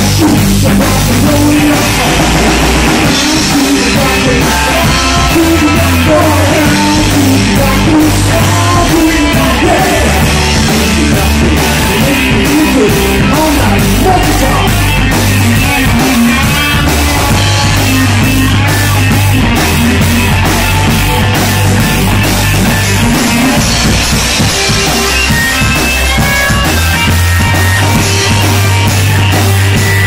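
Live rock band playing loud, electric guitars over a drum kit with a steady beat.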